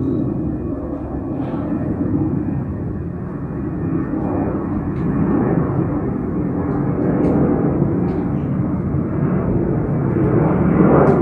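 Boeing 737-800 jet taking off, a steady engine rumble that slowly grows louder.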